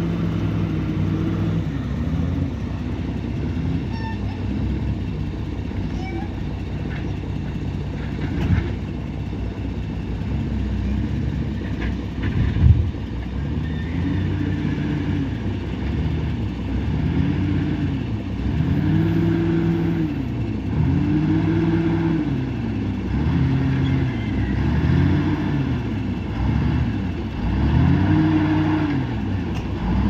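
Komatsu WA470 wheel loader's six-cylinder diesel engine revving up and down over and over as the machine works, about every two seconds in the second half. Two sharp knocks break in, the louder one near the middle.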